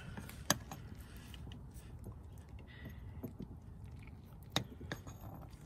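A few sharp clicks and faint handling noises from hands working in the engine bay. The two clearest clicks come about half a second in and near the end.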